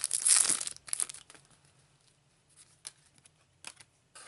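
Trading-card booster pack's foil wrapper being torn open and crinkled, loudest in the first second or so, followed by a few faint clicks and rustles.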